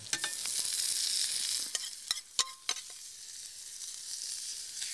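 Cooked red cabbage sizzling as it is spooned into a hot frying pan with fried onions and morels, a steady high hiss that eases a little midway. A metal spoon clicks against the pan about four times near the middle, one click ringing briefly.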